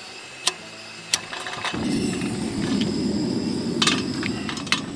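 Portable gas camp stove being lit: two sharp clicks, then the burner catches and burns with a steady low rush of flame. A few more clicks come near the end as the kettle goes onto the grate.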